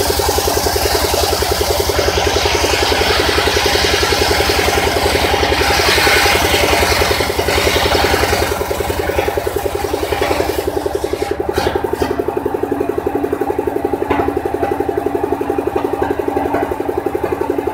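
Engine-driven mobile circular sawmill ripping a wooden plank lengthwise. The engine runs steadily with a fast even beat, and the hissing whine of the blade in the wood dies away about 12 seconds in, leaving the engine and the free-spinning blade.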